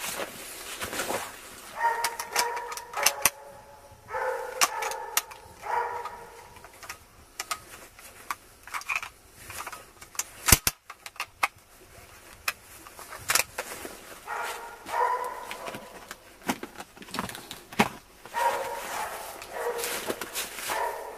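Hunting dogs barking and baying at a wild boar in clusters of calls, with a single gunshot about halfway through.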